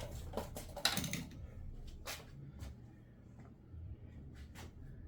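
Scattered light clicks and knocks of parts being handled, a few strikes a second apart, over a low steady hum.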